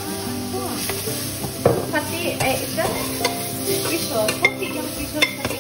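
Sliced onions sizzling as they are stirred in a stainless steel pot, the spatula scraping and knocking against the metal a few times.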